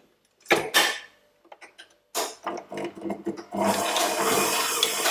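Breville stand mixer: a couple of knocks and clicks as the mixer head is handled, then the motor starts and runs steadily at speed 3, the beater creaming butter in the stainless steel bowl.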